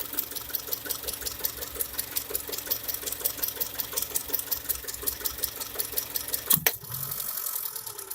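Car engine running with a fast, even ticking, several ticks a second. About six and a half seconds in comes a single loud, sharp knock.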